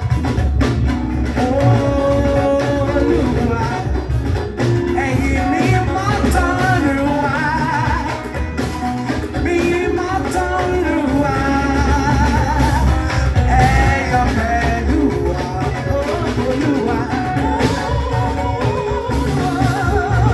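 Music with singing: voices carrying a melody over bass guitar and drums, playing steadily throughout.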